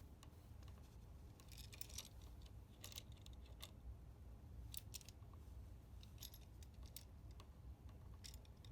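Faint, scattered metallic clicks and scrapes of a wall outlet's metal yoke and wired terminals being worked and pushed into an electrical box that resists it.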